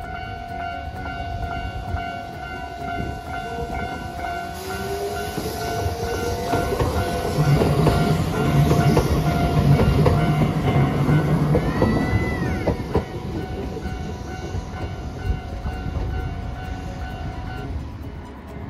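Hiroden 3900-series "Green Liner" articulated tram running past close by, with a rising whine as it comes on and its wheels rumbling on the rails, loudest about halfway through. A brief high wheel squeal comes just after it passes. A level-crossing warning bell rings steadily and stops shortly before the end.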